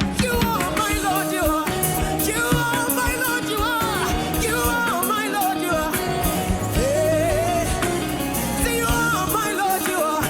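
Live gospel worship music: a band with drum kit and bass playing under a lead line of gliding, ornamented sung runs.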